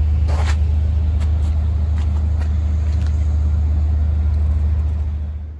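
A loud, steady low drone with a few faint clicks, fading out near the end.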